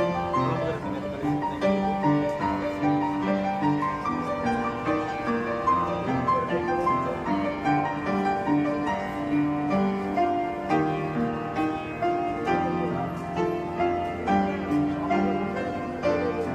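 Instrumental music led by piano, with a steady, regular pattern of notes.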